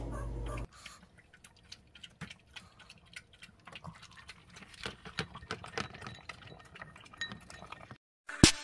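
A Shih Tzu eating dry kibble: faint, irregular crunches and clicks that come thicker from about halfway. A bright chime sounds right at the end.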